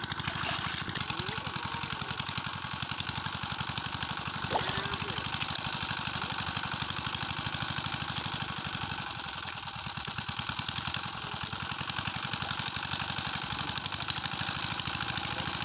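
Small engine running steadily with a fast, even beat: the pump dewatering the pond.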